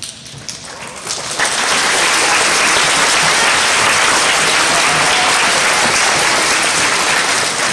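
Audience applauding: clapping starts and swells over the first second and a half into full, steady applause, then begins to ease off near the end.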